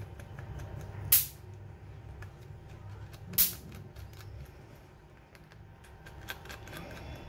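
Small ticks and scrapes of a precision screwdriver turning out the tiny screws of a smartphone's internal cover plate, with two louder sharp clicks about a second in and again a little over two seconds later, over a steady low hum.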